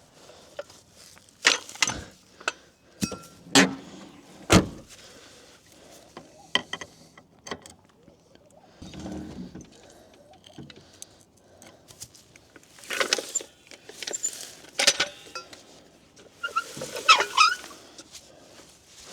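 Scattered metallic clanks, knocks and rattles of a trolley jack being handled and positioned under a car, in two busy spells with quieter gaps between, and a few short squeaks near the end.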